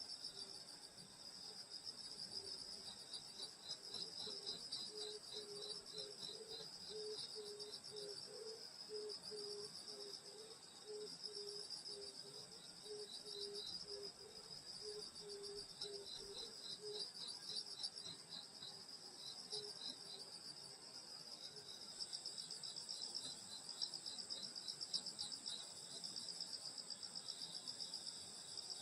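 Crickets and other grass insects trilling in chorus, several steady high-pitched trills layered over one another. A lower, evenly pulsed call repeats beneath them through the first half and then stops.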